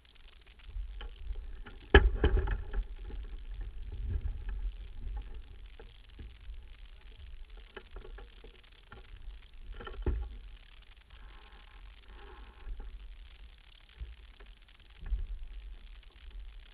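A small sailboat under sail, heard as wind buffeting the microphone in an uneven low rumble, with knocks of gear and crew on the boat. The loudest knock comes about two seconds in and another just after ten seconds.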